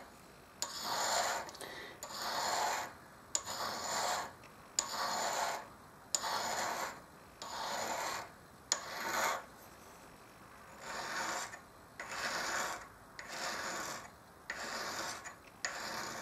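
Honing stone rubbed over the nose of a high-speed steel lathe tool in about a dozen short back-and-forth strokes, each under a second, some starting with a light click as stone meets steel, with a brief pause about two-thirds of the way through. This is the nose radius being honed onto the tool.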